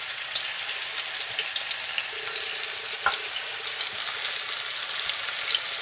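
Beef sausage rissoles sizzling and crackling in hot vegetable oil in a frying pan as they are laid in: a steady sizzle with many small pops, the sign that the oil is hot enough for frying.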